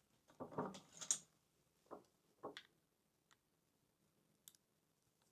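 Light clicks and ticks of a small screwdriver and fingers working on a model locomotive's tender as it is unscrewed: a cluster of clicks in the first second, then a few single ticks spaced out after it.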